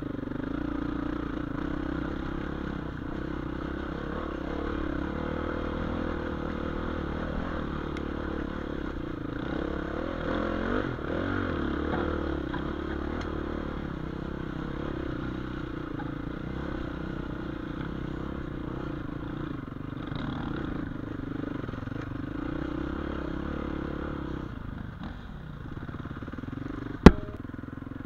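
Dirt bike engine running steadily as the bike is ridden over a rocky trail. Near the end comes one sharp knock.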